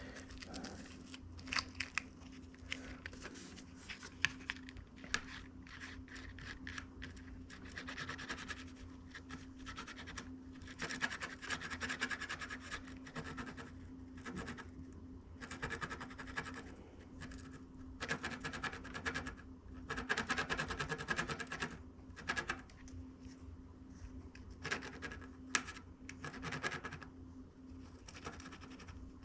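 Soldering iron tip being rubbed and scraped to clean oxidation off it, an irregular scratching that comes in uneven strokes. A steady low hum runs underneath.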